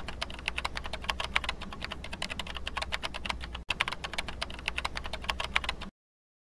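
Computer keyboard typing sound effect: a fast, continuous run of key clicks that paces the on-screen text as it types out. It breaks off for an instant just past halfway and stops shortly before the end.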